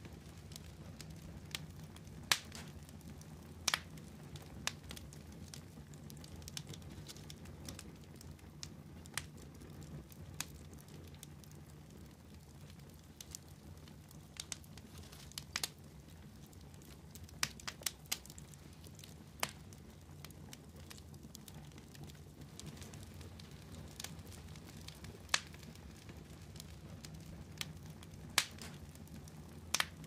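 Burning wood embers crackling, with irregular sharp pops a few every couple of seconds over a low steady hum.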